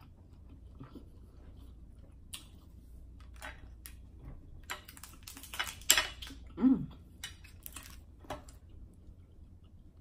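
Cooked crab shells cracking and snapping in a close series of sharp clicks as a crab cluster is broken apart by hand, densest and loudest a little past the middle, with a brief low sound soon after.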